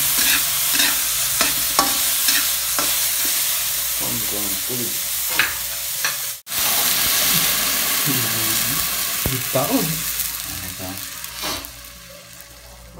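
Sliced vegetables sizzling as they are stir-fried in a steel wok, the spatula scraping and knocking against the metal many times. The sizzle cuts out for an instant about halfway, then dies down near the end.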